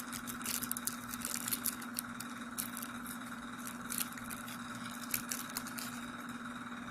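Gum wrappers crinkling and ticking in quick irregular bursts as the chewing-gum pieces are handled, thinning out after about five seconds, over a steady electrical hum.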